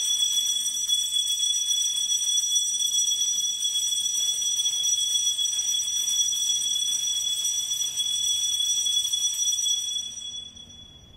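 Altar bells (a cluster of small sanctus bells) shaken in a continuous bright jingle with steady high ringing tones, fading out about ten seconds in.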